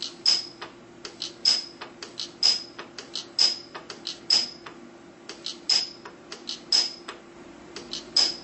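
Precision pulse welder firing a series of welds: a sharp snap with a short high ring about once a second, most of them just after a fainter click, over a steady electrical hum.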